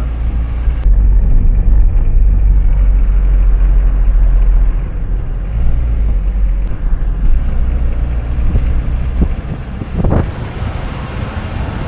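Moving car heard through an open side window, with wind buffeting the microphone: a heavy low rumble that is loudest in the first half, and a short gust about ten seconds in.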